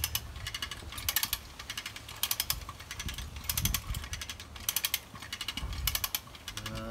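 Hand winch (come-along cable puller) ratchet being worked by its lever while hauling a vehicle: each stroke gives a quick run of pawl clicks, about one stroke a second, six in all.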